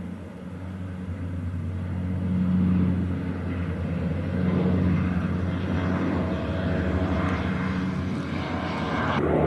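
Canadair water-bombing aircraft's propeller engines droning steadily, swelling louder about two and a half seconds in and again around five seconds.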